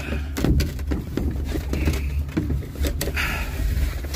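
Ski lift being boarded: a string of sharp metallic knocks and clanks over a steady low rumble.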